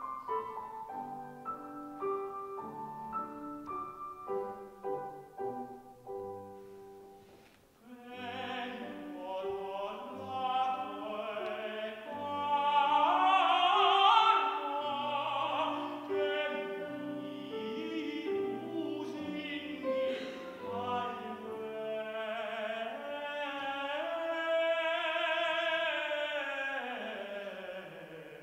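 Grand piano playing alone, then a tenor comes in about eight seconds in, singing an operatic aria with vibrato over the piano accompaniment. The voice is loudest a few seconds after it enters.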